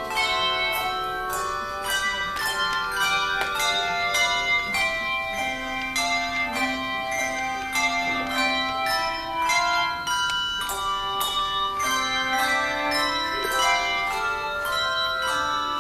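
Handbells ringing a piece of music: a quick run of struck notes, often several at once in chords, each ringing on after the strike. Lower bass bells sustain under the melody, and the run pauses briefly about ten seconds in.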